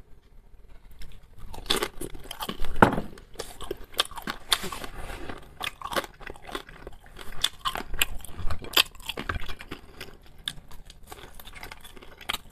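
A man chewing and biting into pan-fried dumplings close to the microphone: irregular short chewing clicks throughout.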